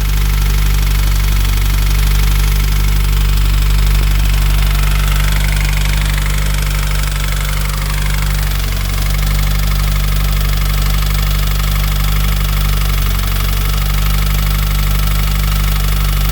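Subaru FA20DIT turbocharged flat-four idling steadily just after a cold start, with a knocking noise that shows on cold start.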